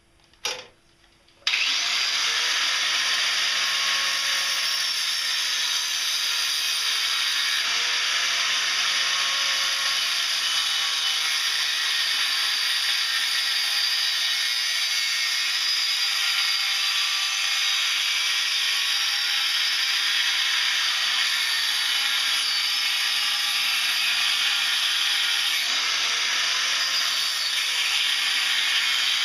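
Angle grinder switched on about a second and a half in, then running steadily as its disc grinds into a small piece of metal, the pitch sagging slightly now and then under load. A short knock comes just before it starts.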